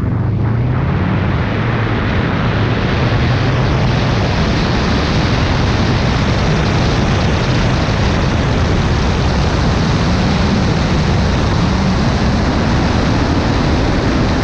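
Steady rush of wind over an outside-mounted microphone as a 2005 Subaru WRX wagon drives off and travels along the road. Its turbocharged flat-four engine runs as a low rumble underneath. The rush builds over the first second or two, then holds steady.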